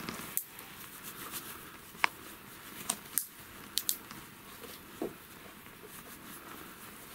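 Faint rustling with a handful of small, sharp clicks from hands handling gear, over a quiet, steady background.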